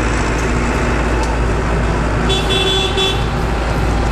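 Steady low rumble of a road vehicle running, with a horn sounding once for about a second, a little over two seconds in.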